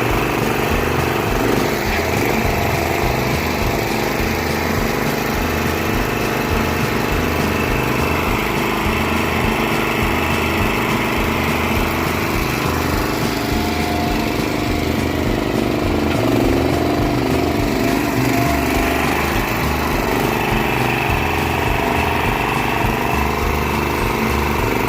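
Small engine of a U Dig 40 backhoe running steadily, its pitch shifting slightly now and then as it works.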